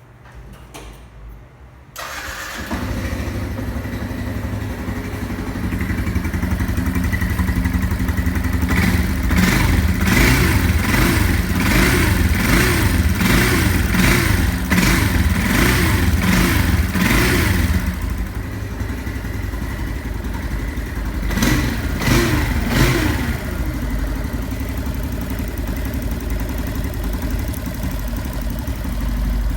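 Yamaha Fazer 150 single-cylinder four-stroke engine started about two seconds in, idling, then blipped roughly once a second for several seconds and twice more before settling back to idle. The owner says this engine has a whine like a bearing, which can go with the battery no longer charging (error 46).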